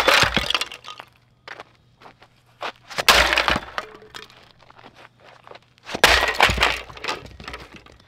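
Three heavy blows about three seconds apart from an iron dumbbell smashing onto the plastic housing of an Electrolux Trivac stick vacuum, each with a sharp crack of breaking plastic and a brief clatter of fragments.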